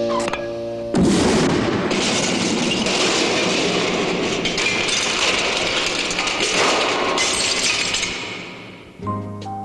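Cartoon explosion sound effect from a plunger detonator: a sudden blast about a second in, then a long, noisy stretch of crashing and clattering with many sharp cracks, fading away after about eight seconds. Jazz music comes back in near the end.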